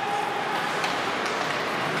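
Ice hockey play in a rink: a steady hiss of skating with a few faint clacks of sticks and puck, and indistinct voices.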